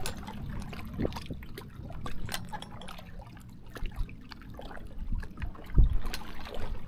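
Water lapping and trickling at the shoreline, with low wind rumble on the microphone and a few scattered clicks and knocks.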